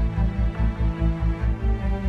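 Background music: sustained chords over a steady pulsing low beat, about four pulses a second.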